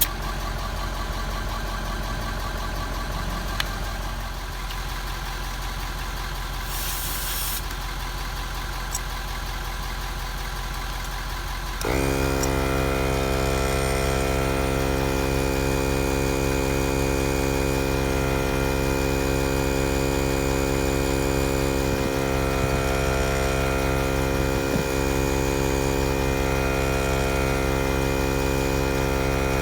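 Viair 400P 12-volt portable air compressor switching on about twelve seconds in and running steadily with an even drone while inflating a truck tyre. Before it starts there is a steady lower hum and a brief hiss.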